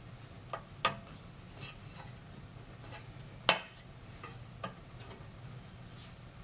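Metal soundbar wall-mounting bracket being handled and turned over, giving a few light metallic clinks and knocks. The loudest knock comes about three and a half seconds in.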